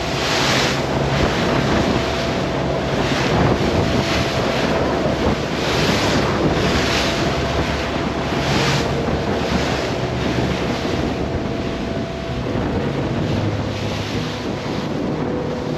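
Wind buffeting the microphone and spray rushing along the hull of a motor cruiser pushing through choppy sea at cruising speed. The rush swells in irregular surges every couple of seconds over the low, steady drone of its twin engines.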